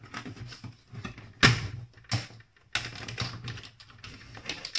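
Handling noises: a run of small clicks and rustles, with two sharper knocks about a second and a half and two seconds in.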